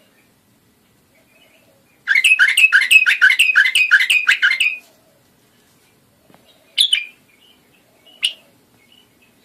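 Iraqi bulbul calling: a fast run of about a dozen sharp chirps, four or five a second, lasting under three seconds, then two single sharp calls a little over a second apart.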